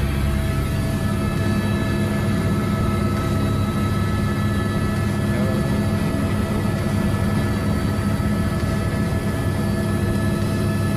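Steady drone of an aircraft in flight, heard from inside the cabin, with several unchanging engine tones over a low rumble.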